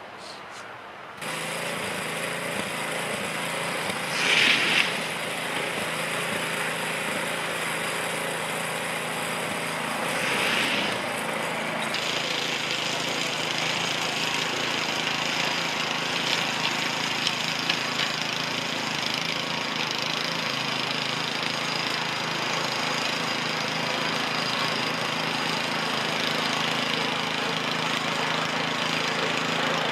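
An engine running steadily, cutting in abruptly about a second in, with two brief louder noises about four and ten seconds in.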